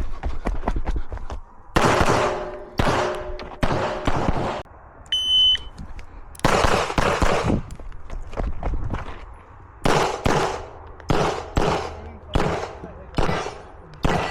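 Handgun shots fired in quick irregular strings during an IPSC Production stage, each crack trailing off in range echo, with pauses between groups as the shooter moves between target arrays. A short high electronic beep sounds once about five seconds in.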